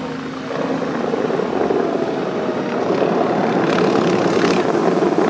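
Bellagio fountain water jets shooting up and crashing back into the lake, a loud steady rushing of water. It swells about half a second in and grows louder toward the end.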